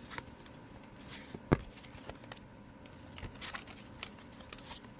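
Baseball cards being handled and sorted: soft rustling with scattered light taps, the sharpest about one and a half seconds in.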